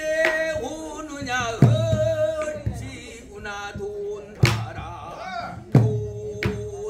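Pansori singing: a male voice holding long, wavering notes. Three loud, sharp strokes on a barrel drum (buk) cut in about a second and a half in, midway, and near the end.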